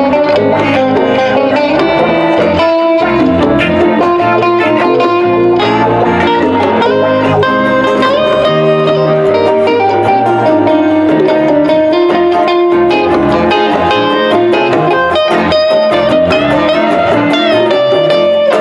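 Live band playing a rock number, with electric guitars to the fore over a steady beat.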